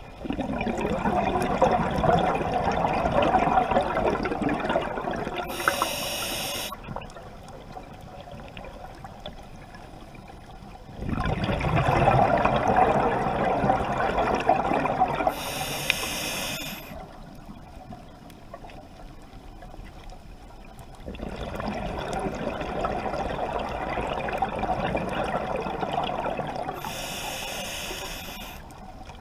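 A scuba diver breathing through a regulator underwater. There are three long bursts of exhaled bubbles, each ending in a short high hiss, with quiet pauses of a few seconds between them.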